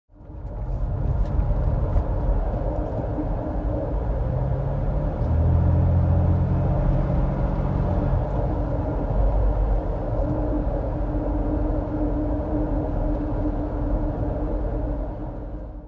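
2009 Nissan Xterra on the move: steady road rumble with a constant drone running through it, the noise of a rear wheel bearing that has lost its lubrication.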